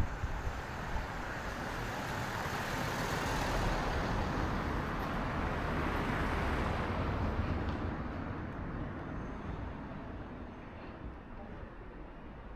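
A road vehicle driving past, its noise building up over a few seconds and then fading away.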